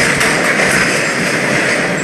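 MBTA Orange Line subway train running on the rails, a steady loud wheel-and-track noise with a strong hiss and faint clicks.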